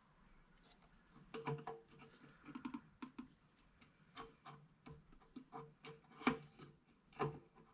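Irregular clicks and knocks of hand work on air-compressor parts during reassembly, starting about a second in, a few of them with a short metallic ring.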